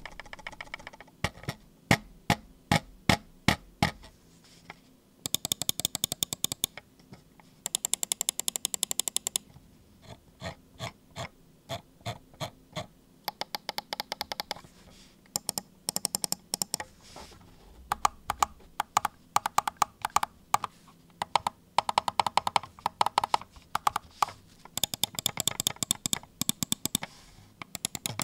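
Fnatic Bolt gaming mouse clicking: separate clicks about two a second at first, then fast runs of rapid clicks broken by short pauses.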